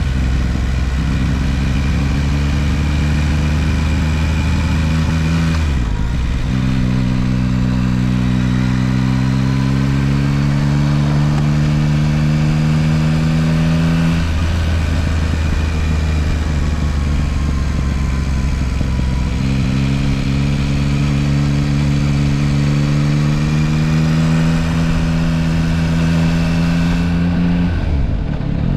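Yamaha Tracer 9 GT+ motorcycle's 890 cc three-cylinder engine heard from the bike while riding at low speed, with wind and road noise. Twice the engine note climbs slowly in pitch for several seconds as the bike accelerates, then breaks off.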